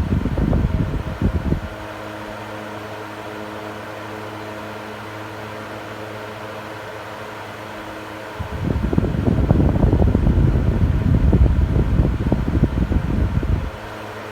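Electric fan running with a steady motor hum. Loud low gusts of its airflow buffet the microphone for the first second or so and again for about five seconds from just past the middle.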